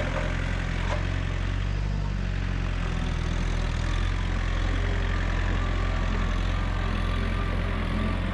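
Engine running steadily at an even speed, with a hiss of noise over it.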